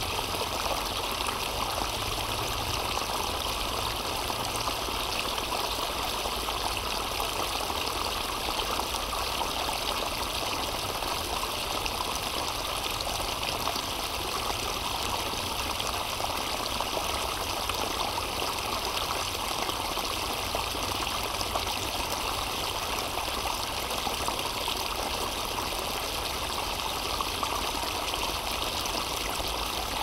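A small brook pouring over a low step through dead grass, its water splashing and babbling steadily, heard close up.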